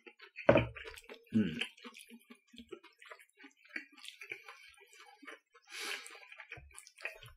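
Eating sounds: a sip from a small bowl of ponzu sauce and a couple of short low mouth sounds in the first second and a half. Then soft, wet, scattered clicks and ticks of wooden chopsticks working steamed udon noodles in a silicone steamer, with a brief louder wet sound about six seconds in.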